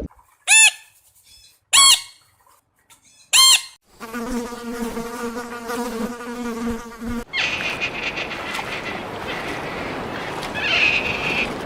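Three short, loud arched calls in the first few seconds, then a steady insect buzz from about four seconds in. Near the middle the buzz changes to a hissier, higher one.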